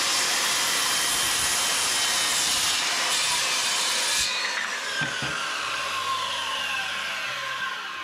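Makita 5007F 7¼-inch, 15-amp corded circular saw running and cutting through a wooden board. About four seconds in the cut ends and the motor is switched off, its pitch falling steadily as the blade spins down.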